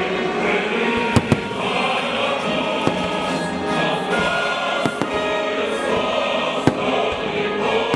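Fireworks bursting, a handful of sharp bangs, the loudest a pair about a second in and one near the end, over choral music.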